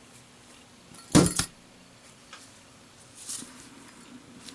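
A Zippo lighter dropped onto a hard surface, landing with a sharp metallic clatter about a second in and bouncing once right after.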